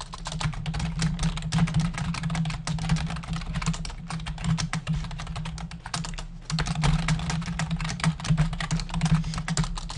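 Rapid typing on a computer keyboard, a quick run of key clicks with a brief pause about six seconds in, over a steady low hum.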